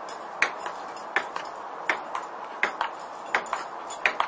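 Table tennis rally: the ping-pong ball clicking off the table and the paddles in quick pairs, a pair about every three-quarters of a second in a steady back-and-forth rhythm, over a steady background hiss.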